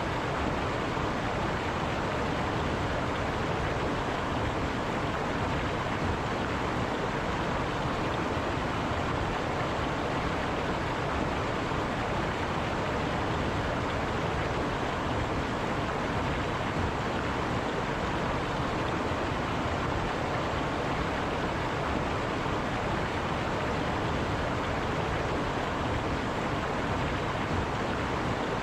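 River water running steadily over rocks, an even rushing noise that does not change.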